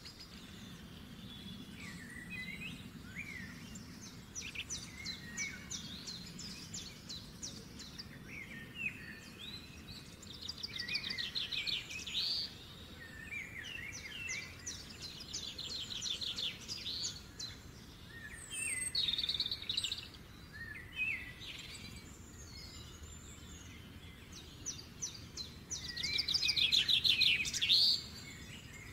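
Songbirds singing: bursts of rapid trills mixed with short chirps, the longest and loudest trill near the end.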